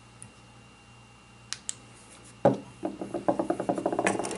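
Two small clicks, then a single loud knock and a fast run of rattling ticks, about eight to ten a second, from a UV curing torch and tools being handled and set down at a fly-tying bench.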